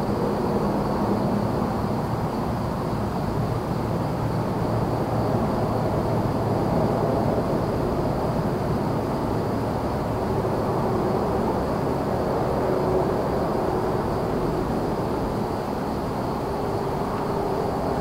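Steady wash of distant highway traffic, with a constant high trill of crickets above it.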